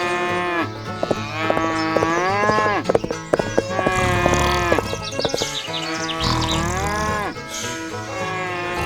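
A series of about five long, drawn-out animal-like calls, each rising and then falling in pitch, with a few sharp clicks in the middle.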